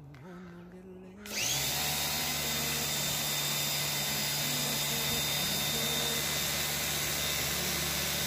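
Craftsman 1900-PSI electric pressure washer kicking in about a second in, then running steadily. The motor and pump hum and whine under the loud hiss of the high-pressure water jet striking a car door.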